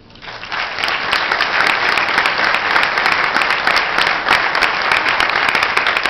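Audience applauding: the clapping swells over about the first second, then goes on steadily.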